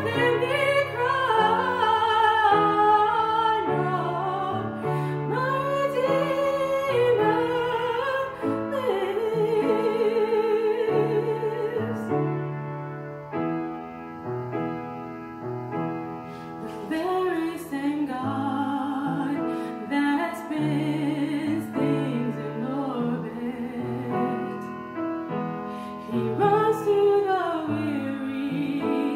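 A woman singing a slow solo with wide vibrato, accompanied on an upright piano. About halfway through the voice drops out for a few seconds while the piano plays on, then the singing returns.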